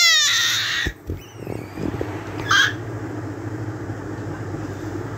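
Infant crying while his face is massaged: a loud, wavering wail that breaks off about a second in, then a brief cry about two and a half seconds in. A steady low hum runs underneath.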